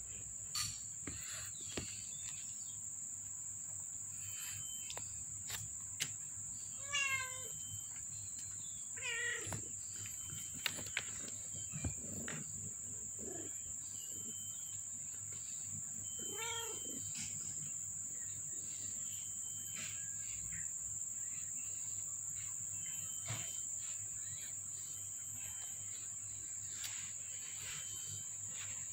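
Five-week-old kittens meowing three times, short high cries, over a steady high chirring of crickets, with a few light clicks and rustles as they move about.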